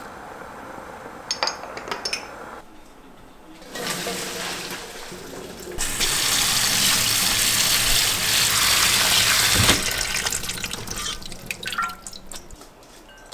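Tap water running into a sink. It starts as a thinner stream, runs at full flow for about four seconds, then eases off and stops. A few short knocks come just before it.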